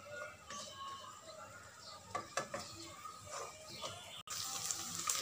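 A spatula scrapes and taps against a nonstick frying pan as chopped onion and garlic are stirred in butter, giving a few light clicks over a faint sizzle.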